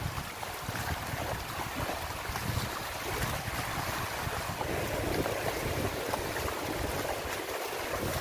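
Small waves breaking and washing up over a shallow, muddy shore in a steady hiss of surf, with wind buffeting the microphone.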